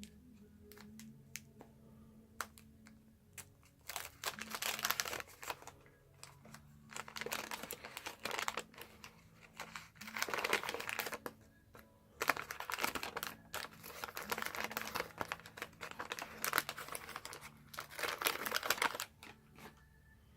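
Wax paper wrapper of a 1981 Donruss wax pack crinkling and crackling as it is torn open and handled, in about six bursts of a second or two each, with scattered small clicks before them.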